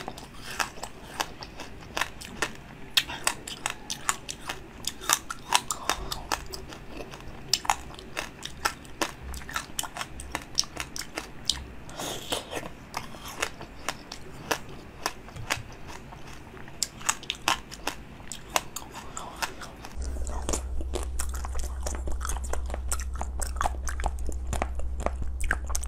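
Close-miked biting and chewing of frozen fruit ice pops, with sharp, crackly crunches several times a second. About twenty seconds in, the sound changes to sparser, softer bites and chewing over a steady low hum.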